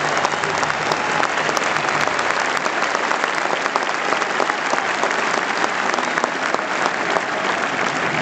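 A large stadium crowd applauding, a dense, steady clapping of many hands.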